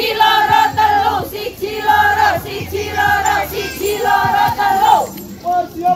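A group of high voices singing a chant in unison, in short sung phrases about once a second.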